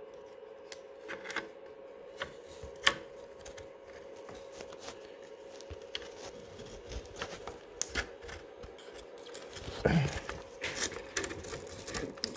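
Scattered clicks, taps and scrapes of a plastic tuning tool pushing and prying at a CB radio's front panel around the knob shafts, breaking the panel's seal. The sharpest click comes about three seconds in and a cluster of taps near the end, over a faint steady hum.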